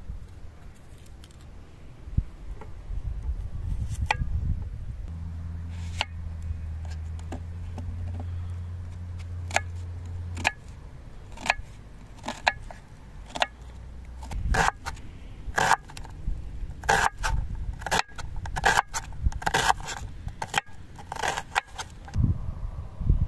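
Sharp clinks, knocks and scrapes of cooking utensils, irregular and growing busier toward the end. A low steady hum runs from about five seconds in to about ten.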